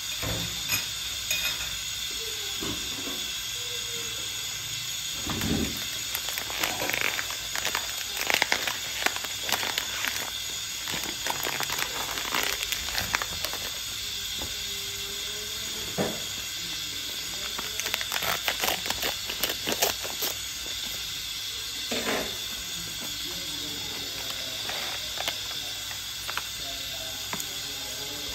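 Pot of rice noodles and cabbage simmering in water: a steady hiss with irregular crackling and popping, busiest from about 6 to 20 seconds in.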